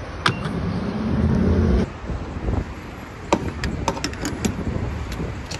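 Gas pump handling: a sharp click, then a low hum that swells and stops abruptly about two seconds in. A quick run of sharp metallic clicks and clunks follows as the fuel nozzle is fitted into the car's filler neck.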